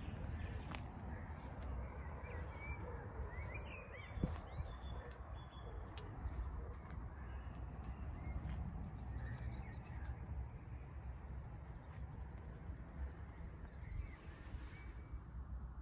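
Outdoor ambience: birds calling now and then over a steady low rumble.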